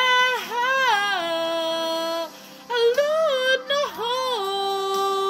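A woman singing two wordless phrases of quick vocal runs, each settling into a long held note, with a short pause about two seconds in.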